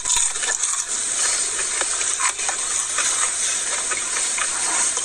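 A steady hiss with many faint clicks and crackles: people chewing spicy chicken fries and handling the fry box.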